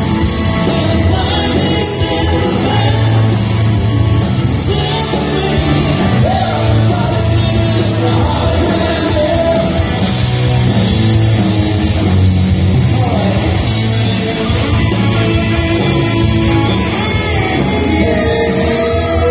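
Live rock band playing loud: a male lead singer over electric guitars, bass guitar and drums, heard from the audience.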